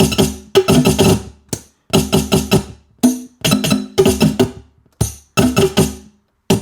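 Linn LM-1 drum machine playing its sampled drums from the sequencer in rapid bursts of hits, each burst cut off abruptly with short gaps between.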